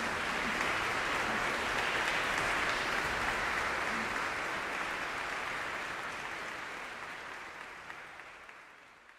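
Audience applauding, a dense steady clapping that fades out over the last few seconds.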